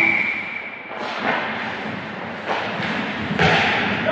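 Amateur ice hockey game on the rink: a referee's whistle sounds once for about a second, then several hard thuds from sticks, puck and boards.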